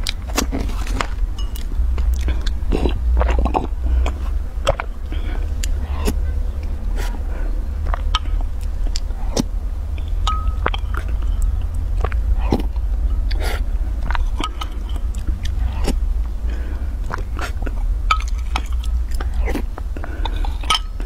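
Close-miked eating: chewing and mouth sounds, with a metal spoon clicking and scraping against a glass mug. A steady low hum runs underneath.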